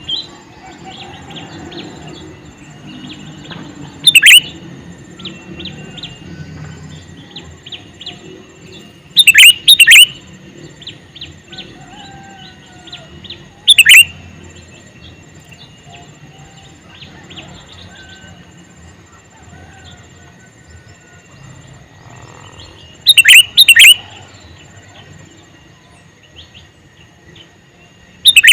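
Male sooty-headed bulbul (kutilang) calling: loud, sharp call notes every few seconds, some in quick pairs, with fainter chirping in between.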